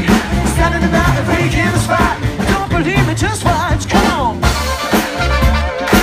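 Live band playing funk-pop with bass guitar, drum kit and congas, a male lead singer running wavering, bending vocal ad-libs over it; near the end the melody settles into held notes.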